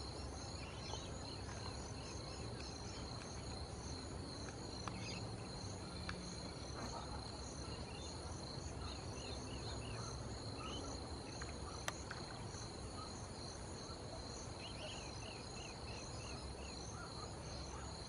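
Steady chorus of insects, a continuous high-pitched trill, with a few short runs of fainter chirps and a low background rumble.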